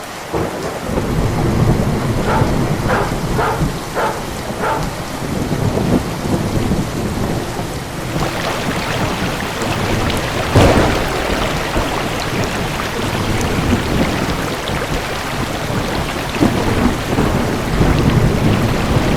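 Thunderstorm: steady rain with rolling low thunder, the rain growing heavier about halfway through, and a sharp thunderclap about ten and a half seconds in.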